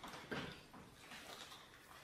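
An animal sneezing once, faintly, about a third of a second in.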